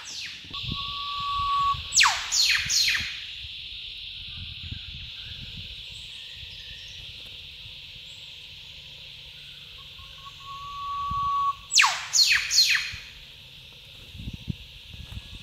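Eastern whipbird calling twice, each a long steady whistle ending in a sharp falling whip-crack and followed by quick answering notes, the duet of a pair. Insects buzz steadily throughout.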